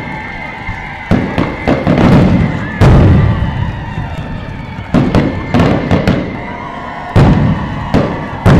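Aerial firework shells bursting overhead: repeated sharp booms at uneven intervals, each trailing off in an echo, the loudest about three seconds in.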